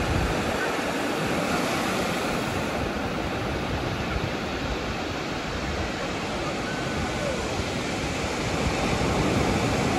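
Ocean surf: waves breaking and washing up a sandy beach in a steady rush.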